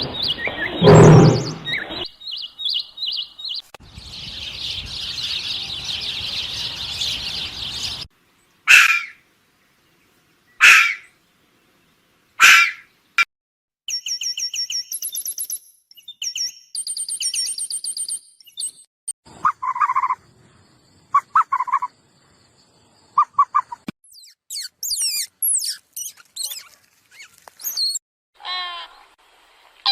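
A run of different animal calls, one after another. A hissing buzz comes first, then three sharp single calls a couple of seconds apart, then rapid high chirping and trills, and finally high gliding bird whistles.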